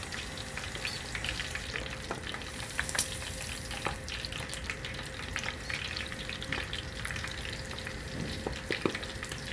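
Coconut-battered shrimp deep-frying in hot oil: a steady sizzle with frequent, irregular crackles and pops.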